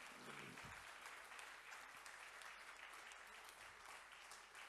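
Audience applauding, faint and steady, a dense patter of many small claps.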